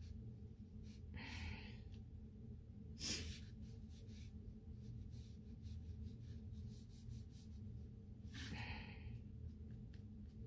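A person breathing audibly twice, about a second in and again near the end, with one sharp click about three seconds in, over a steady low hum.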